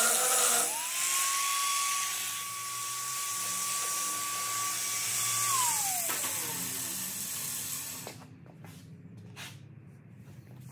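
Electric grinder running on metal with a high whine and harsh grinding hiss. The pitch sags as the disc bites near the start and then recovers. About halfway through it is switched off and the whine falls away as it spins down, leaving a few faint clicks.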